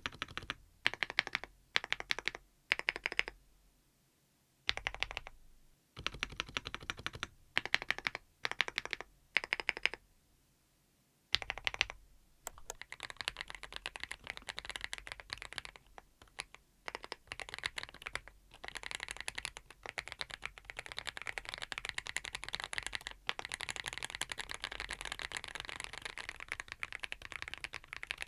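Thinkway TV108 full-size mechanical keyboard with Aurora Ice Cream switches. First come short bursts of repeated presses on the stabilized long keys, with brief pauses between them. From about eleven seconds in there is continuous, fast typing.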